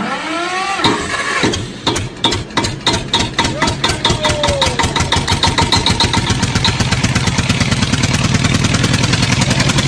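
A small engine starting up and running, its putt-putt beats quickening steadily.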